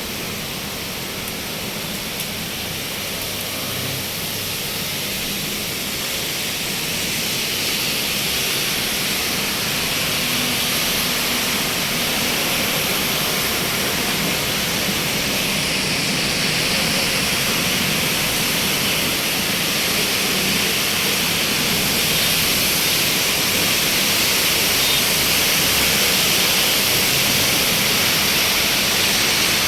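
Heavy rain falling, a steady dense hiss that slowly grows louder; no thunder is heard.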